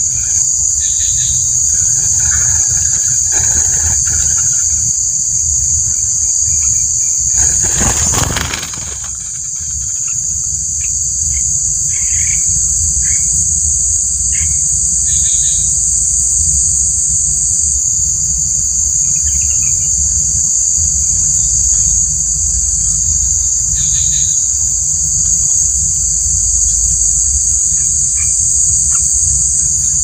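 Steady, high-pitched drone of insects in undergrowth, with a few short bird chirps scattered through it and a low rumble underneath. About eight seconds in comes a brief burst of noise.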